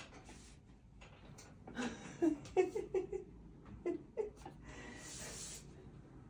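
A woman giggling quietly in short bursts under her breath, with breathing, and a soft hiss about five seconds in.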